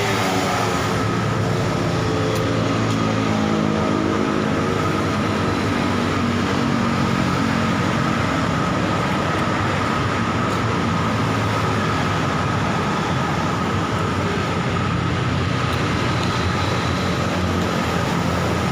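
Steady road traffic noise: vehicle engines hum and shift in pitch, with a constant high whine over the roar.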